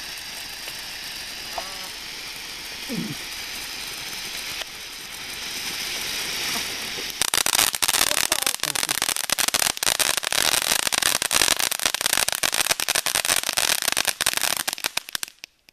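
Small ground fountain firework spraying sparks with a steady hiss. About seven seconds in it breaks into loud, rapid crackling, which cuts off suddenly near the end as the fountain burns out.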